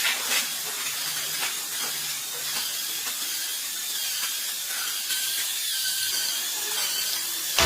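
A steady high hiss, with a faint wavering whistle running through it and a few light ticks.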